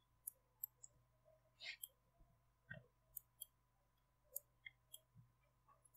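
Faint, scattered clicks of a computer keyboard and mouse, about a dozen in six seconds, over a faint steady hum.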